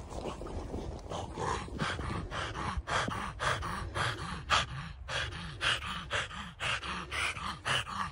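French bulldog breathing hard and fast while playing, quick rough panting breaths with grunts, about three a second.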